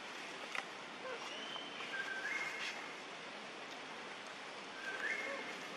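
Outdoor ambience: a steady hiss, with a two-note whistled call that steps up in pitch, heard twice, about a second and a half in and again near the end, plus a higher single whistled note just before the first call.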